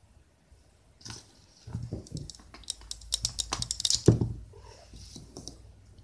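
Rapid clicking and light clattering of small hard items being handled, densest a little past the middle, with one louder knock about four seconds in.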